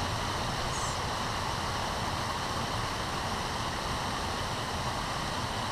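Steady rush of flowing river water, an even hiss with no change, and a faint high chirp just under a second in.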